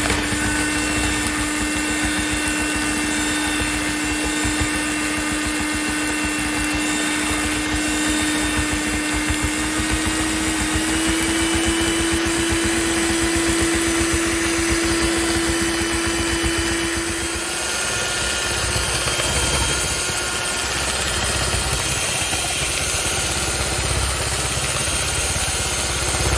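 Electric hand mixer running steadily, its beaters whipping cream in a glass bowl. The motor's steady whine rises slightly in pitch about ten seconds in, and after about seventeen seconds it gives way to a lower, rougher running sound.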